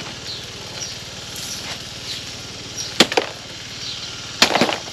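Stones tossed by hand into a wheelbarrow: two clusters of sharp clattering knocks, about three seconds in and again about a second and a half later.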